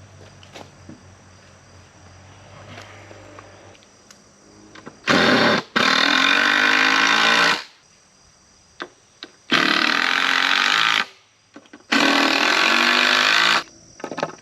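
A power drill driving 3-inch deck screws into wood: three runs of about two seconds each, the first about five seconds in, with the motor's pitch gliding as each screw goes in. Faint knocks of handling come before them.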